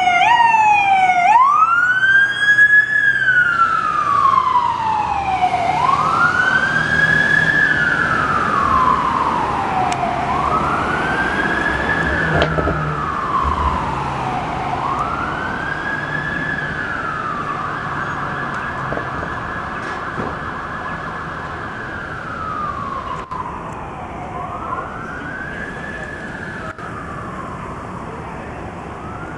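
Siren of a 2002 Ford F550 brush truck, going from a quick yelp to a slow wail about a second in. Each wail rises and then falls over about four seconds, fading steadily as the truck drives away.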